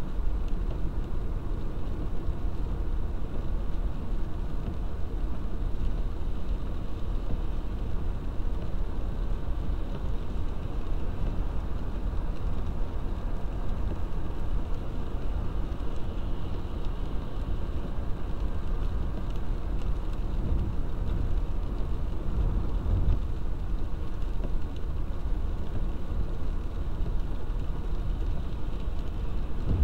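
A car driving on a wet road in rain, heard from inside the cabin: a steady low rumble of engine and tyres with a faint hiss of water.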